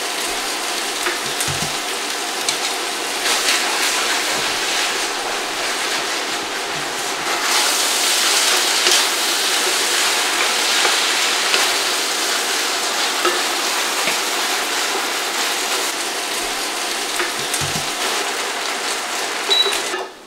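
Shrimp pad thai noodles sizzling as they stir-fry in a stainless steel skillet, turned with a wooden spatula, with a few soft knocks of the spatula against the pan.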